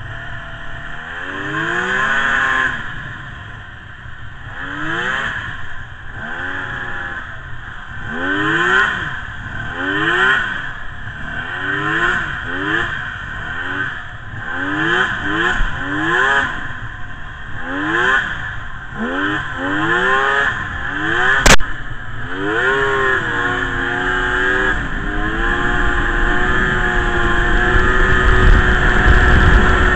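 Polaris XLT snowmobile's three-cylinder two-stroke engine revving again and again, its pitch climbing and dropping back every second or two. About two-thirds of the way through a single sharp click sounds, and the engine then holds a steadier, higher pitch at speed while a low rush grows louder.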